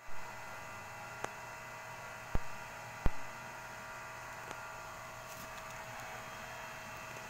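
Steady electrical hum with several fixed tones, broken by a handful of sharp clicks. The two loudest clicks come a little under a second apart, near the middle.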